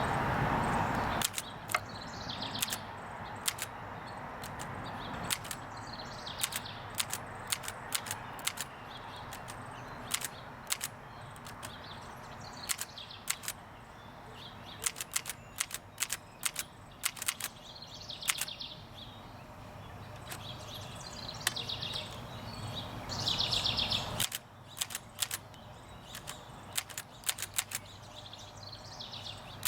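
Consul 233 manual typewriter being typed on: irregular runs of sharp key and typebar strikes, with a few short mechanical rattles between them.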